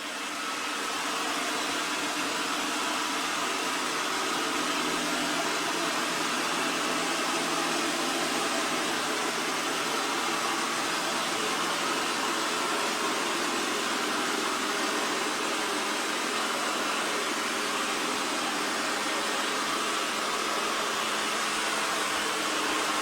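EXTRAVIS V5 PRO robot vacuum's suction fan running steadily in sweep mode (vacuuming only, no mopping), a smooth whir that grows louder over the first second or so as the robot comes closer.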